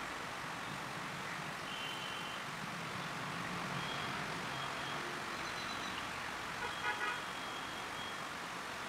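Steady hum of distant road traffic, with faint short high tones now and then and a brief vehicle horn toot about seven seconds in.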